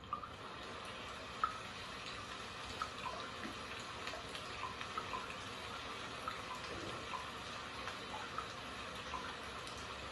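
Steady trickling water, cutting in abruptly, with scattered light drips and plinks.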